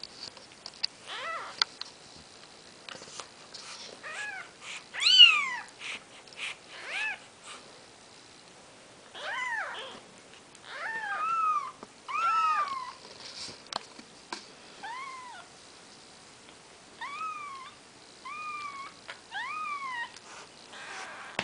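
Four-day-old Maine Coon kittens mewing: a string of short, high calls, each rising and falling in pitch, the loudest about five seconds in.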